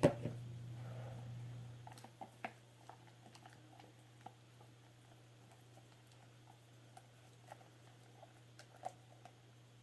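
Slime being mixed by hand just after activator is added: faint, scattered sticky clicks and squishes at an irregular pace.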